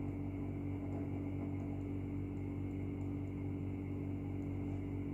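Steady low electrical hum, with a few faint light ticks as a capacitive stylus's disc tip touches the tablet's glass while writing.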